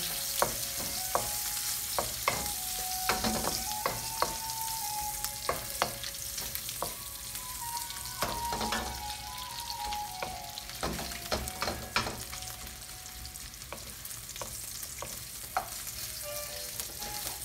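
Bacon sizzling in oil in a wok, with a steady hiss and frequent sharp taps and scrapes of a spatula against the wok as the rashers are turned.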